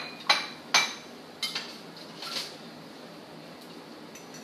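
A metal fork rapped three times against the rim of a bowl, sharp ringing clinks about half a second apart, as excess egg is shaken off a shrimp. They are followed by a couple of lighter clinks, a brief scrape and a few faint ticks.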